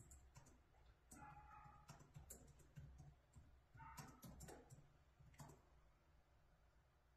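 Near silence: room tone with scattered faint clicks.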